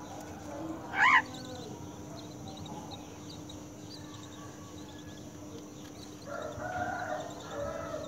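Common myna calling at the nest, with one loud call about a second in. Faint high chirps follow, then a burst of harsh calls near the end as the adult feeds the gaping nestlings.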